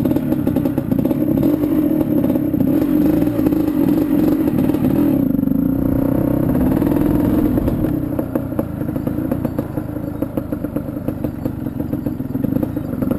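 Quad (ATV) engine running under throttle as it is ridden along a dirt trail; the engine eases off about eight seconds in.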